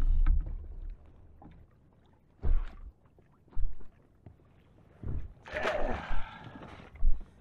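Water slapping against the hull of a small inflatable boat on a swell: separate low knocks, then a louder rushing splash a little past halfway.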